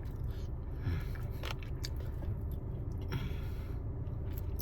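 A person chewing and biting into a fried chicken wing, gnawing the meat and cartilage off the bone, with a few scattered wet clicks.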